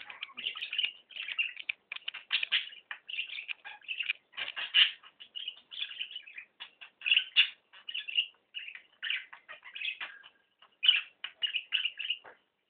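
Budgerigar chattering and warbling: a continuous run of quick chirps, clicks and squawks with no pauses longer than a moment.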